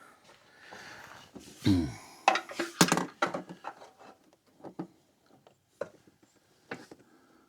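Hand tools and engine-bay parts being handled: scattered clicks, knocks and rubbing. The loudest run of knocks comes about two to three seconds in, just after a short scrape that falls in pitch.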